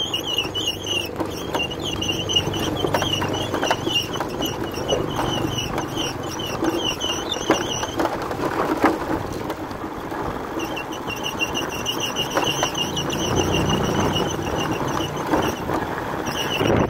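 Motorbike running over a rough, broken dirt road, with knocks and rattles from the bumps. A high, fast-pulsing buzz runs through most of it and drops out for a couple of seconds in the middle.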